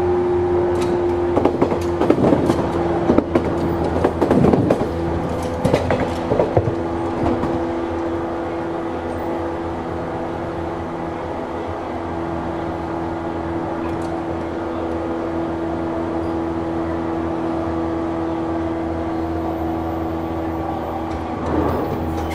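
JNR 185 series EMU running at speed, heard at the gangway between cars. Its MT54 traction motors give a steady whine that sinks slightly in pitch. Sharp clanks and rattles of the gangway plates come over the first several seconds.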